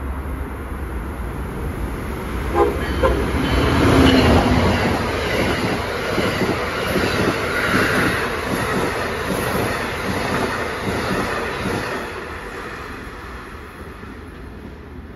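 Amtrak electric-locomotive train with Amfleet coaches passing through a station at speed. Sharp clicks come as the locomotive reaches the mic about two and a half seconds in, and the sound is loudest about a second later. Then a rapid, even clickety-clack of the wheels over the rail runs while the coaches go by, fading from about twelve seconds in as the train moves away.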